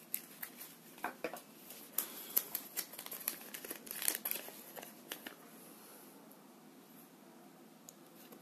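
Folded paper leaflet being pulled from a Kinder Surprise toy capsule and unfolded by hand: rapid crinkling and crackling of paper that dies down after about five seconds.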